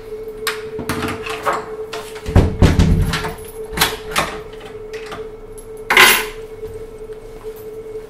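Household knocks and clatters as someone handles things in a room: a run of light knocks and clicks, a heavier thud about two and a half seconds in, and a sharp loud knock at six seconds, over a steady hum.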